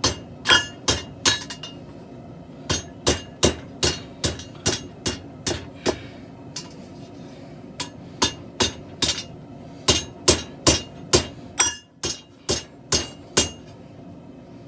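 Hand hammer striking hot steel on an anvil, flattening the end of a steel bow blank. It strikes at about two blows a second in runs of several blows with short pauses between, each blow leaving a brief high ring.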